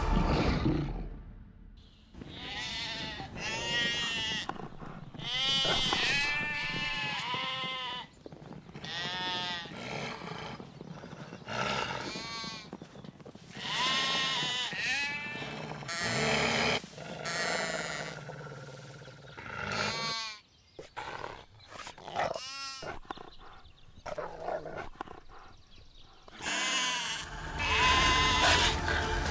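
A lamb bleating over and over in distress as a wolf attacks it: a series of loud, wavering, quavering calls, some close together and some with short gaps between them. Near the end a loud, dense wash of sound takes over.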